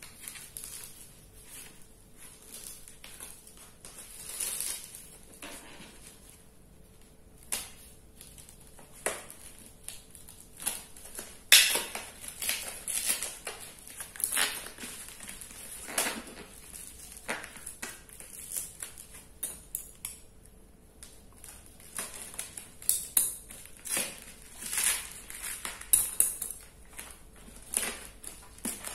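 Brown packing tape being picked at, cut with scissors and torn off a cardboard parcel: scattered crackles, rips and scrapes of tape and cardboard, sparse at first and busier after about ten seconds.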